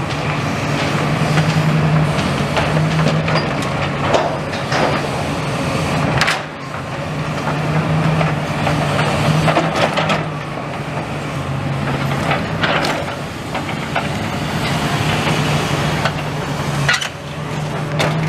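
Demolition excavator's diesel engine running steadily as it works, with scattered knocks and crunches of rubble and timber being broken and moved by its grab.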